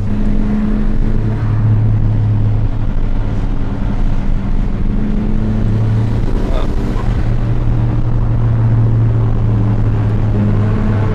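Cabin drone of a Seat Arosa's swapped-in turbocharged 1.8T four-cylinder engine (GT28 turbocharger) cruising at steady revs, with road noise. The pitch holds constant throughout, with no revving or gear changes.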